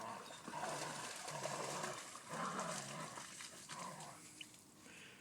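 A dog making a series of about four low growls, fading out near the end.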